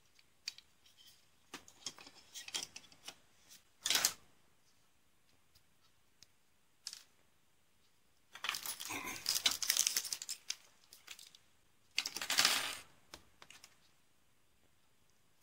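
Small plastic and metal model-kit parts clicking and clattering as they are picked up and set down, the sharpest knock about four seconds in. Two longer spells of plastic rustling follow in the second half.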